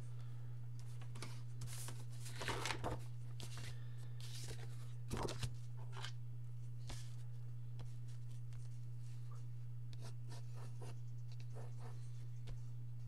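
Paper being handled and slid on a desk, with a few louder rustles in the first half, then light scratching of a pencil on paper, over a steady low hum.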